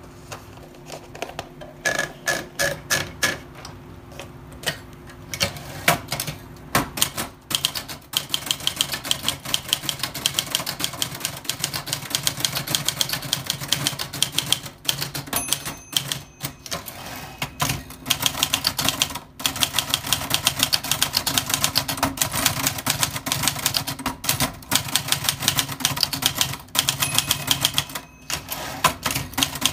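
Old typewriter being typed on: scattered keystrokes at first, then rapid, continuous key strikes from about eight seconds in, broken by a few brief pauses.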